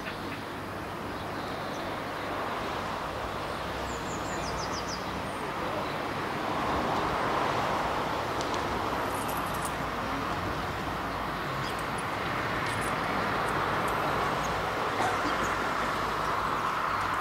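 Steady outdoor rumble of distant traffic that slowly grows louder, with a few short bird chirps about four seconds in.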